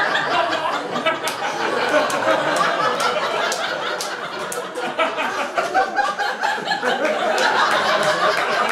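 Theatre audience laughing at length after a punchline, many voices together.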